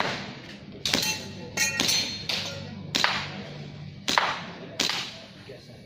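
Airsoft pistol shots on an IPSC Action Air stage: about seven sharp cracks at uneven intervals of half a second to a second, a couple followed by a brief metallic ring from a plate being hit.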